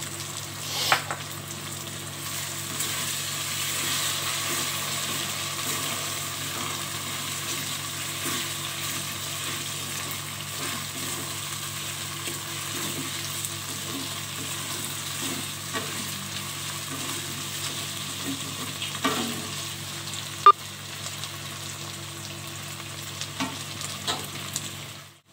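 Vegetables and sauce sizzling in a metal wok while a wooden spatula stirs and scrapes them, with a few sharp knocks of the spatula against the pan, the loudest about twenty seconds in.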